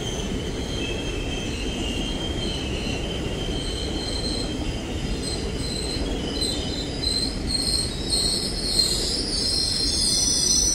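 Indian Railways ICF passenger coaches rolling past, with a steady low rumble of wheels on rail and high-pitched wheel squeal in several tones. The squealing grows louder and busier from about two-thirds of the way through.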